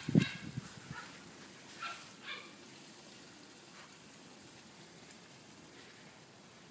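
Finnish Lapphund puppy giving short yaps: a sharp one just after the start, then two softer ones about two seconds in. After that only a faint steady hiss.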